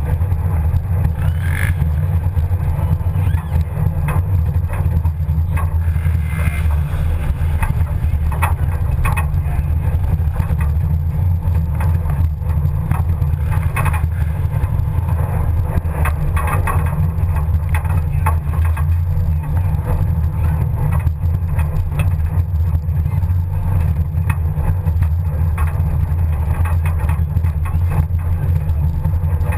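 Pinzgauer off-road truck driving along a bumpy woodland track, heard from its open rear bed: a steady low rumble of engine and drivetrain, with scattered knocks and rattles from the bouncing load bed.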